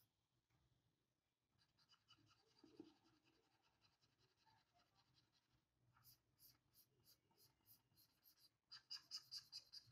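Faint scratching of a pen stylus on a graphics tablet: short repeated shading strokes, about two a second, turning to quicker, louder strokes near the end.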